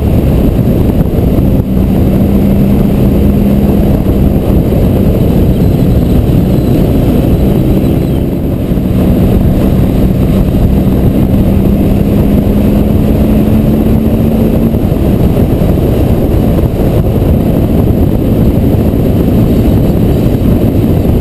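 BMW R1200GS flat-twin engine running while the motorcycle rides along at road speed, heard from a camera mounted on the bike under a heavy rush of wind over the microphone. The engine's low hum shifts a little in pitch and sinks into the wind noise about three-quarters of the way through.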